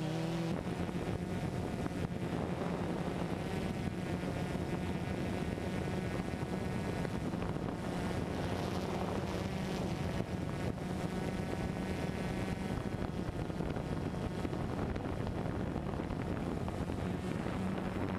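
Multirotor drone's motors and propellers buzzing in a steady hum, with wind noise on the onboard microphone.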